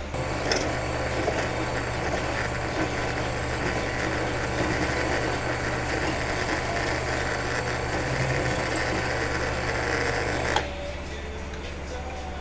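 Power drill running under load, drilling into a steel socket to make a knob; the motor runs steadily and stops abruptly about two seconds before the end.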